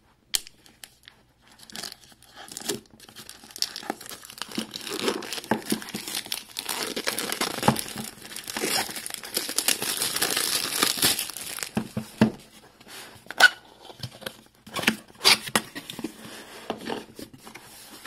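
Cardboard box being opened by hand: flaps pulled and the carton tearing and crinkling, loudest in a long stretch through the middle. Then several sharp knocks and taps as the box and its packed contents are handled.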